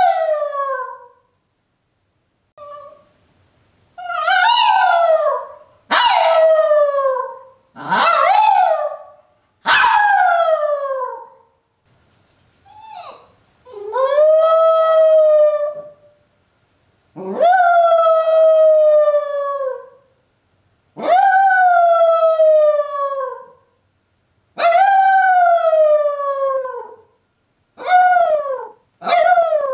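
Miniature poodle howling, left home alone: a long series of howls about every three seconds, each sliding down in pitch at its end, with shorter, quicker howls near the end. The howling is the dog's distress at being left alone.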